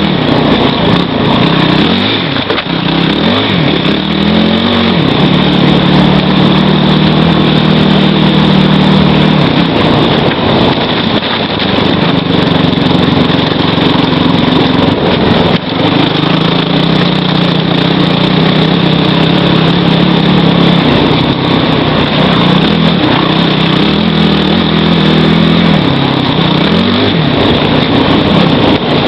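Kawasaki KFX450R quad's single-cylinder four-stroke engine pulling the machine along a trail. Revs rise and fall with the throttle in the first few seconds and again near the end, and hold fairly steady for several seconds at a time in between.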